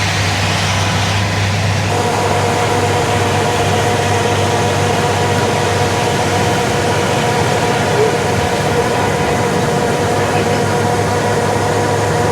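Rice combine harvester's engine running steadily at work while it unloads grain through its boom, with a steady whine joining about two seconds in.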